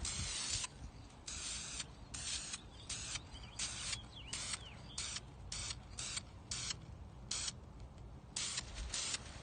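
Primer paint being sprayed onto a sanded rust repair patch on a car body in a dozen or more short hissing bursts, each well under a second, as the first coat goes on.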